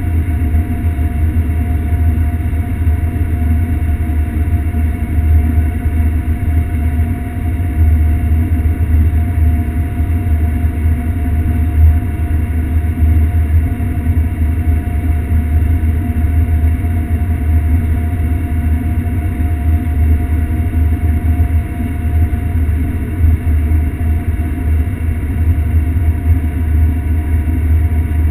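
John Deere S670 combine running under load while harvesting sunflowers, heard from inside the closed cab: a steady deep drone with a faint constant whine above it.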